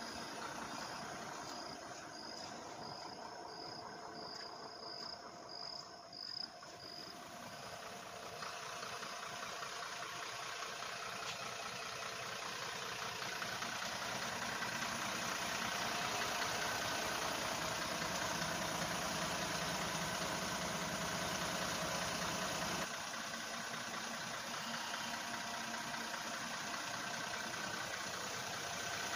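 A borewell rig truck's engine running steadily, growing louder after the first several seconds as it comes nearer. An insect chirps about twice a second in the first few seconds.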